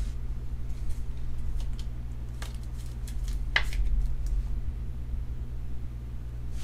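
Steady low electrical hum, with a few soft clicks and scrapes as a hard plastic card case is handled in the hands.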